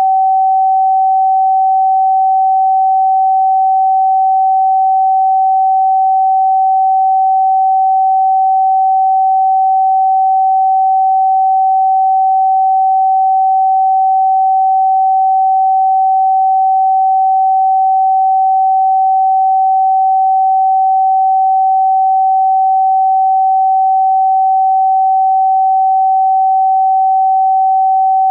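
A pure sine tone held steady at about 764 Hz, the note G in 432 Hz tuning, with no other sound.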